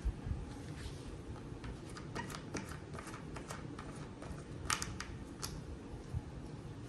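Scattered light clicks and scrapes of handling as the stock feet are twisted off the bottom of an SVS subwoofer by hand, over a low rumble of handling. A sharp click right at the start and a small run of louder clicks a little before the end.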